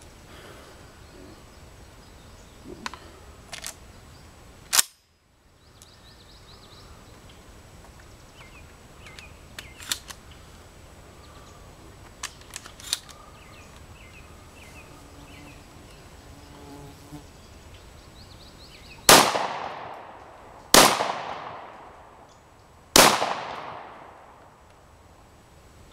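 Weatherby SA-08 12-gauge gas-operated semi-automatic shotgun firing three shots about two seconds apart, each with a long echoing tail. Earlier come a single sharp crack about five seconds in and a few light metallic clicks as the gun is handled.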